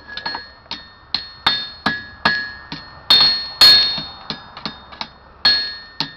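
Hand hammer striking red-hot steel on an anvil, about a dozen blows at an uneven two to three a second. Each blow leaves a clear metallic ring, and the hardest pair come about halfway.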